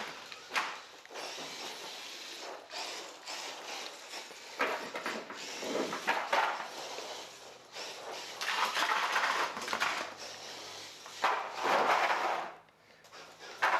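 An Axial SCX10.2 RC crawler, running without its body, driving over the course. The noise of its tyres and chassis on the surface comes and goes in irregular bursts and is loudest near the end.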